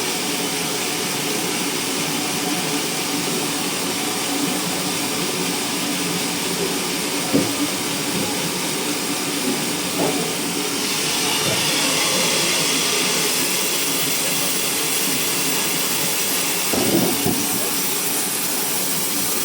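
Sawmill machinery running steadily, a loud hum with hiss, which swells louder and hissier for about five seconds midway as if cutting; a few short knocks break through.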